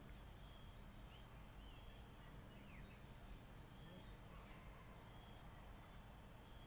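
Faint steady high-pitched insect chorus, crickets trilling without a break, with a few faint short chirps every second or two.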